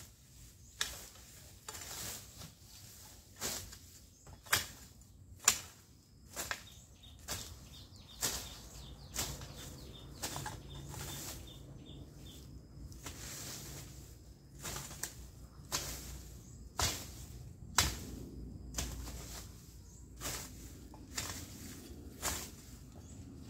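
Long-handled hoe chopping and scraping through weeds and soil, about one stroke a second, with a short pause partway through.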